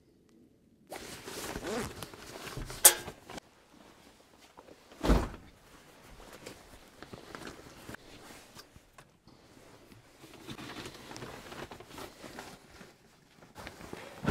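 Handling noises: rustling and shuffling starting about a second in, with a sharp click about three seconds in and a heavy thump about five seconds in, then lighter knocks and scuffs.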